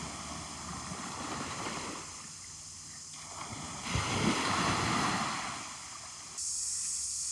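Small sea waves washing in the shallows, swelling and fading, with a stronger wash about four seconds in. Near the end it gives way abruptly to a steady high hiss.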